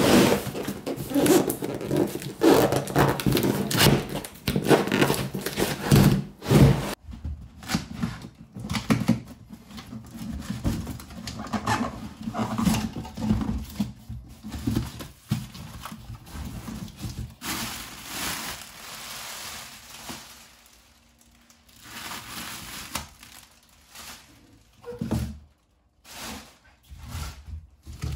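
Plastic wrapping crinkling and tearing as it is pulled off a cardboard box, densest over the first several seconds. Then come intermittent rustles, scrapes and thunks of cardboard as the box flaps are opened.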